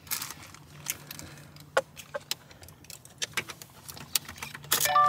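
Car keys jangling and clicking as the ignition key is handled, over a faint steady hum. Near the end a steady electronic chime starts sounding.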